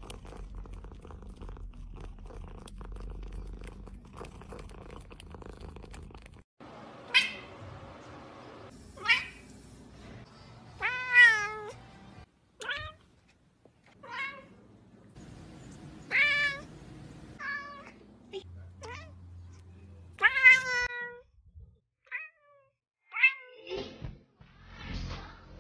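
A domestic cat meowing again and again, about a dozen meows, each falling in pitch, starting about a quarter of the way in. Before the meows there is only a low steady hum.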